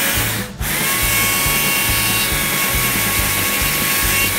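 Stihl chainsaw running and cutting into cherry wood, a steady high whine with a brief dip about half a second in.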